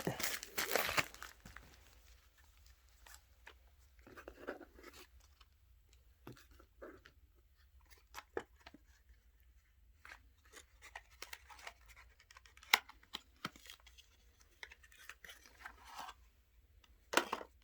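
Card-game kit packaging opened by hand: tearing and crinkling of wrapping, loudest in the first second, then scattered light clicks, taps and rustles as the contents are handled.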